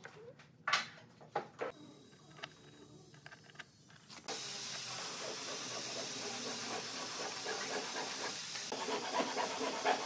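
A few light clicks and knocks, then about four seconds in a steady hiss starts suddenly and holds.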